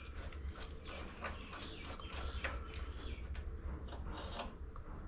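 Irregular light clicks and rattles as a loosened ratchet starter clutch is turned by hand and unscrewed from the mower engine's crankshaft, over a steady low hum.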